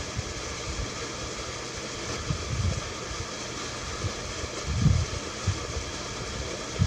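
Steady background hiss with a few brief low thumps, the loudest about five seconds in.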